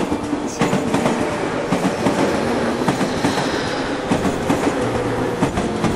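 A JR 201 series electric commuter train passing close by at speed, its wheels clattering over the rail joints in irregular clicks over a steady rushing noise.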